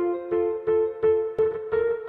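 Intro music: a keyboard playing steadily repeated notes, about three a second.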